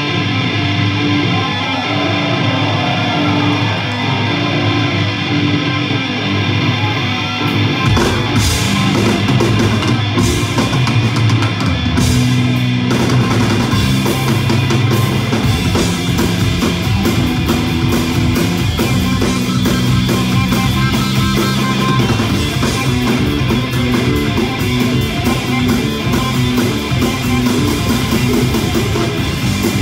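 Live rock band playing loudly: an electric guitar riff with little low end, then drum kit and bass guitar coming in about eight seconds in and the full band playing on.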